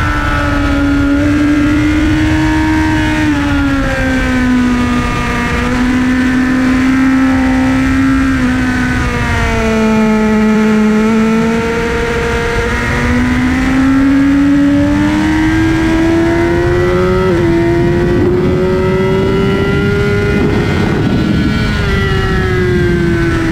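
Sport motorcycle engine heard from onboard at track speed, with heavy wind rush on the microphone. Its pitch falls as the bike slows for a corner about ten seconds in, then climbs steadily under hard acceleration, easing off again near the end.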